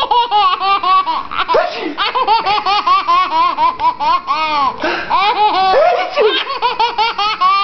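A baby laughing hard and continuously in quick, high-pitched bursts, several a second, with an adult laughing along.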